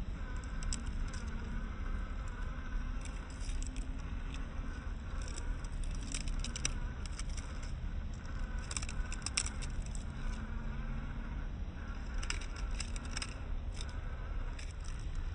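Kyosho Mini-Z 4x4 1/24-scale RC crawler's tyres crunching over loose rocks: clusters of sharp clicks and stone rattles in several bursts, over a steady low rumble.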